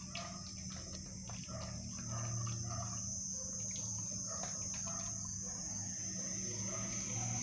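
American pit bull puppy chewing raw chicken, with irregular crunching clicks, over a steady high-pitched whine and a low hum.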